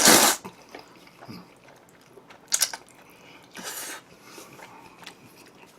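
Close-miked eating and chewing: a loud short burst of eating noise at the start, then quieter chewing with two shorter noisy bursts about two and a half and nearly four seconds in.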